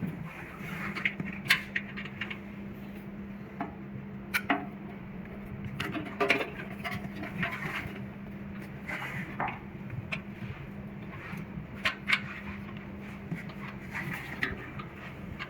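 Scattered clicks and light metallic knocks as the parts of a metal hose reel's guide screw mechanism, snap rings and washers are handled and fitted back in place, over a steady low hum.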